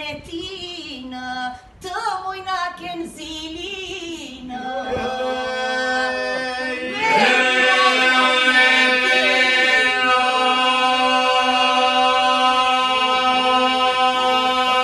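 Albanian polyphonic folk song sung a capella by a mixed group. A voice line moves alone at first, then the group comes in about four and a half seconds in with a sustained drone (the iso), which swells about seven seconds in while the melody continues over it.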